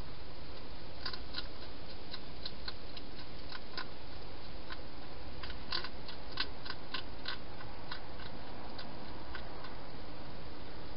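Hedgehog chewing food at a dish: small, crisp, irregular clicks in runs of several a second, sparser near the end, over a steady hiss.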